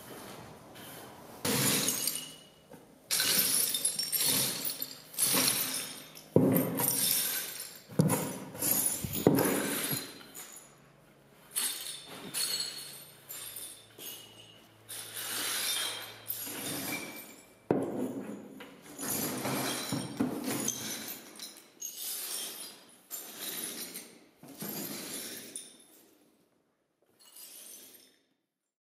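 Broken glass being swept with a push broom across a hard floor: shards scraping and clinking in a run of separate strokes, each a second or two long, that thin out near the end.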